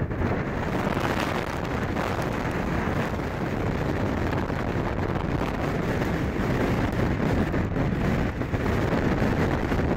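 Strong blizzard wind buffeting the microphone, a steady rush of noise.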